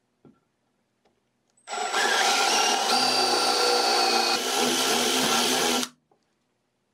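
Power drill boring a hole into a wooden board with a twist bit: the motor whines steadily while the bit cuts for about four seconds, then stops suddenly.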